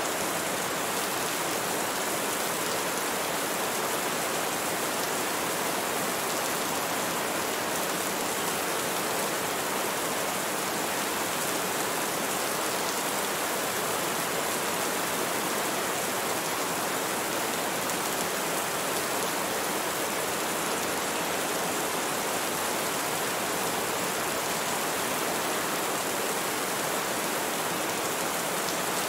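Rain falling steadily: an even, unbroken hiss of drops, with no thunder and no single sound standing out.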